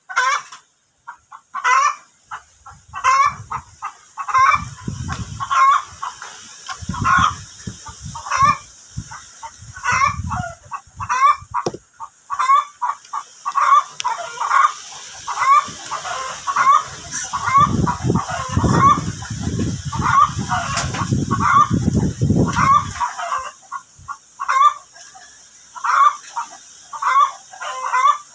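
Chickens clucking over and over, short calls about once or twice a second. A low rumble of handling noise comes and goes, heaviest for several seconds past the middle.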